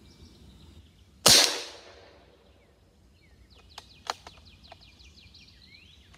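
Benjamin Bulldog .357 big-bore PCP air rifle firing a single shot about a second in: one sharp, loud report with a short echoing tail.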